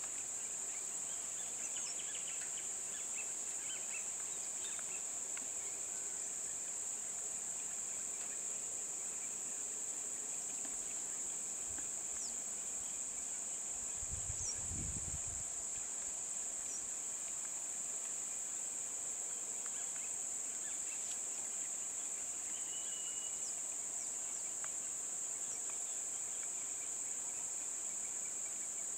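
A steady, high-pitched insect drone, with a few faint bird chirps. About halfway through there is a brief low rumble.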